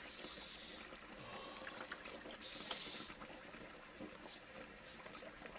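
Faint water splashing and trickling as a man washes his face with cupped hands at a bathroom sink, with a slightly louder splash just after the start and another about two and a half seconds in.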